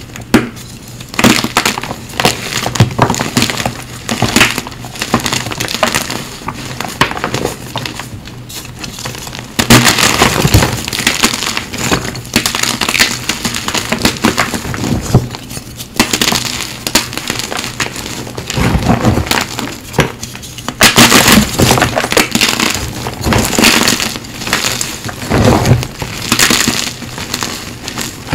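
Blocks of CAP gym chalk (magnesium carbonate) being squeezed and crumbled by hand, a dense run of dry crunching and crackling, with louder stretches about ten and twenty-one seconds in.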